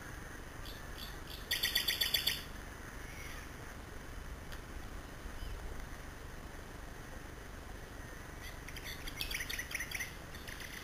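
A bird calling in a quick run of about nine sharp, high chirps about a second and a half in, then another looser run of chirps near the end, over a faint steady hiss.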